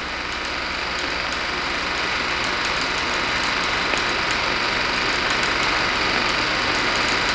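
Steady hiss with a low hum and faint irregular crackling ticks: the background noise of an old film soundtrack, slowly growing louder.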